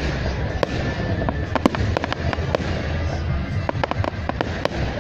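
Fireworks going off in quick, irregular succession: a dense run of sharp bangs and crackles over a low rumble.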